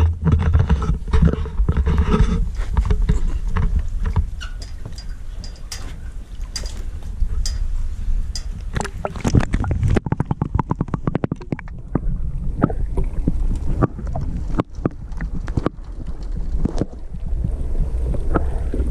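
Muffled underwater rumble of water moving around a submerged camera housing, with many sharp clicks and crackles scattered through it, thickest in the second half.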